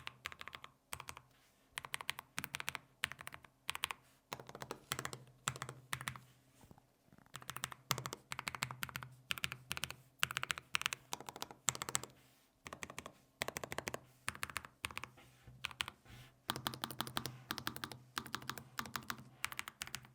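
Typing on a Lofree Flow low-profile mechanical keyboard with Kailh low-profile switches: runs of rapid keystrokes broken by short pauses.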